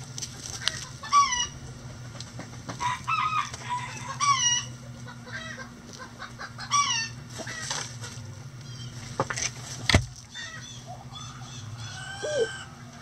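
A flock of backyard chickens clucking and squawking in short, repeated calls, with a single sharp knock about ten seconds in.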